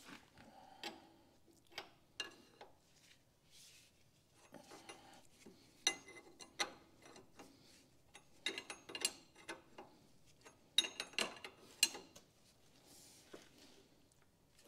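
Steel wrenches clinking and tapping against the hydraulic hose fitting on a log splitter's gear pump as the fitting is worked with two wrenches. The sound is irregular light metallic clicks that come in a few short runs.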